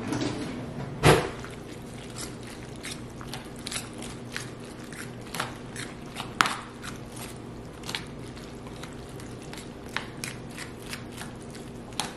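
A metal spoon stirring cooked elbow macaroni coated in an egg-and-milk mixture in a disposable aluminium foil pan: wet squishing with irregular scrapes and clicks of the spoon against the foil, the loudest about a second in.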